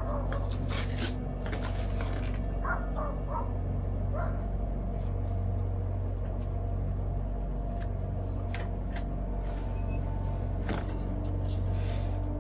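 Doorbell camera audio of bears tearing into a delivered package: rustling and crinkling noise, with a few short sharp calls in the first few seconds, over a steady low hum.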